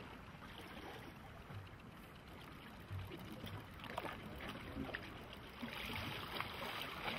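Faint lake water lapping, with a louder hiss near the end.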